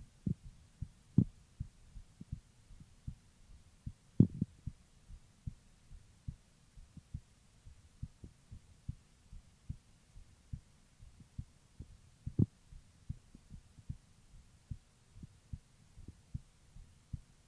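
A woman's heartbeat heard through a stethoscope: a steady, regular run of low paired thumps. Three louder, sharper knocks stand out, the loudest about four seconds in.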